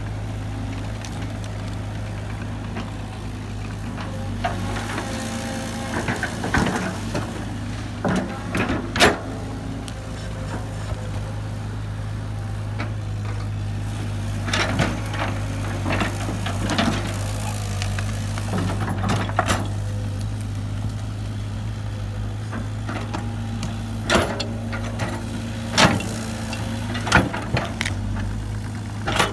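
Heavy earthmoving machinery's engine running steadily, with scattered sharp clanks and knocks now and then, the loudest about a third of the way in and near the end.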